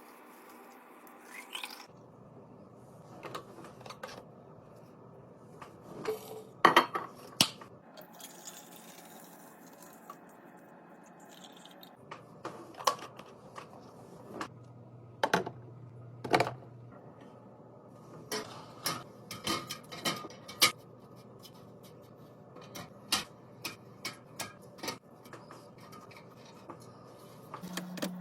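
Scattered clinks, taps and knocks of food containers and jars being handled and set down while a fridge is restocked, with a few louder knocks about 7 and 15 seconds in.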